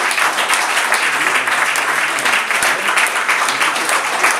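Audience applauding steadily, a dense unbroken clapping.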